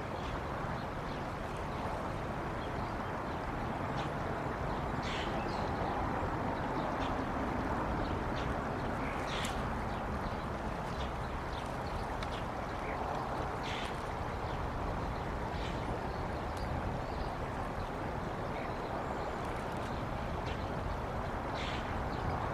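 Outdoor ambience at a bald eagle nest: a steady rushing hiss of wind or running water, with scattered short high-pitched calls a few seconds apart.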